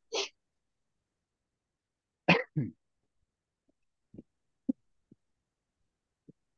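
A person coughs once, a short two-part burst about two seconds in, followed by a few faint clicks.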